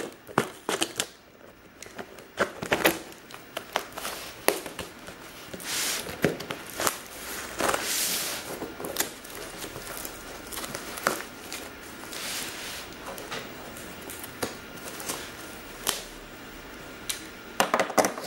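Knife cutting open a plastic-wrapped cardboard parcel: irregular sharp clicks and taps as the blade pierces and slits the wrapping and tape, with longer rustling of the wrapping about 6 and 8 seconds in.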